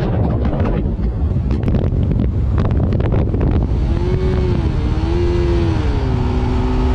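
Motorcycle engine running at road speed, with heavy wind buffeting on the microphone. From about four seconds in, the engine's tone comes through clearly and shifts in pitch, dropping about six seconds in.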